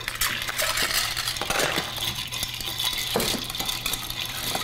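Ice clinking against a glass mixing glass as a cocktail is stirred with a metal bar spoon: a steady run of quick, light clinks.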